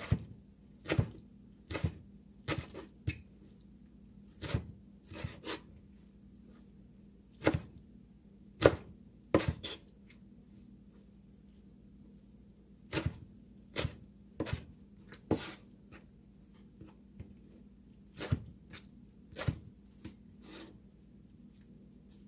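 Kitchen knife chopping on a cutting board: single sharp chops, irregular and in small groups of two or three, with pauses of a few seconds between groups.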